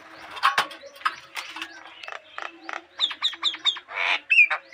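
Several small birds chirping and twittering, with sharp clicks mixed in. About three seconds in there is a quick run of about five short falling chirps, then a harsh, raspy call.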